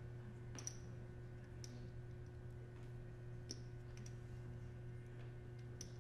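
Faint, scattered clicks of poker chips being handled at the table, a handful spread irregularly over a few seconds, over a steady low room hum.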